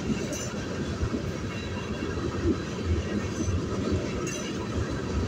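Freight train tank cars rolling past: a steady rumble of steel wheels on the rails, with a few brief clicks over the rail joints.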